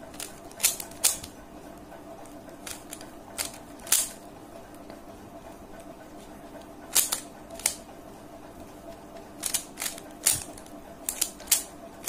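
Plastic 3×3 Rubik's cube being turned by hand: sharp clicks of its layers snapping round, coming in quick irregular clusters of two or three with pauses between. A faint steady hum runs underneath.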